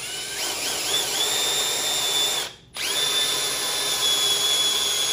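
Electric drill boring a hole through a metal mounting bracket. The motor whines at a pitch that wavers at first and then holds steady. It stops briefly about two and a half seconds in, then runs on.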